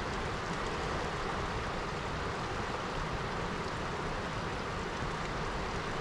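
Steady rush of a fast river flowing over rocks and riffles.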